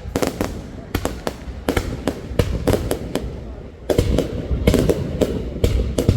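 Aerial fireworks bursting in rapid succession, several sharp cracks and bangs a second over a low rumble. The volley grows denser and louder about four seconds in.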